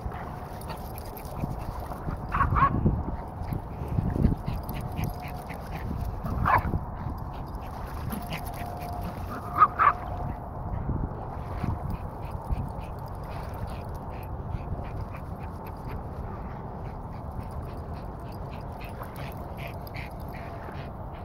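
A small dog gives a few short barks, about three spread over the first ten seconds, over steady background noise.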